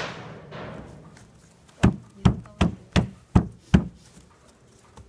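Six quick, sharp knocks in a row, about two and a half a second, starting about two seconds in: a bundle of cardboard firework tubes being knocked down onto a wooden pin board.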